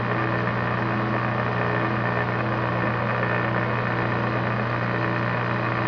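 Metal lathe running steadily with a constant hum, its headstock turning a muzzle facing cutter that is squaring the cut-off end of a shotgun barrel.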